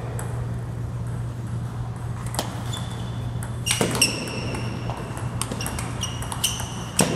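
Table tennis rally: the ball clicking off the paddles and the table in a run of sharp pings, each with a brief ring, coming quicker in the second half. A steady low hum sits underneath.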